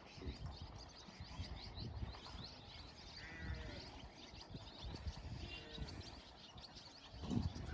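Faint rural outdoor ambience: small birds chirping and calling throughout, with a short trill a few seconds in and a few faint lower animal calls.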